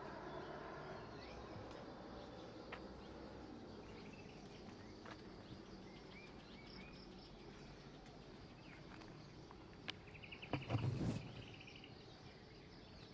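Quiet outdoor garden ambience: scattered short bird chirps over a faint steady insect hum, with a short rapid trill about ten and a half seconds in. A brief louder burst of noise comes at the same moment.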